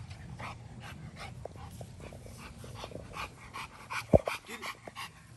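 American Bully dog panting hard, about three quick breaths a second. A sharp thump about four seconds in is the loudest sound.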